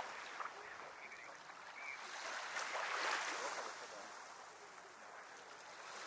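Small sea waves washing up on a sandy shore, one wash swelling and fading away about two to three seconds in.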